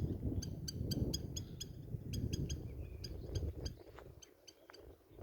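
A bird calling in a rapid, even series of short chirps, about six or seven a second, that fades out after about three and a half seconds, over a low rumble.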